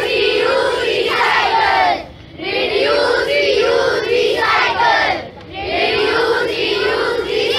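A group of school children chanting a slogan loudly in unison, in three phrases of two to three seconds each with short breaks between them.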